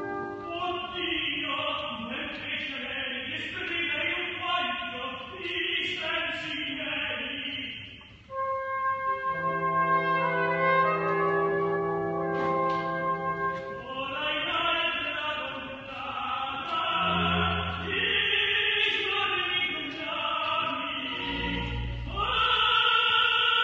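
Live orchestral music with prominent brass and voices singing in operatic style. It breaks off briefly about eight seconds in, then continues with long held chords.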